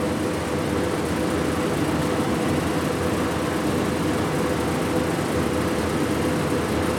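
A steady mechanical hum from a machine running in the shop, even and unbroken, with no separate knocks or starts.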